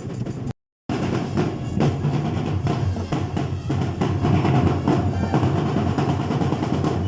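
Drums playing: snare beats and rolls over a bass drum, with a short dropout to silence about half a second in.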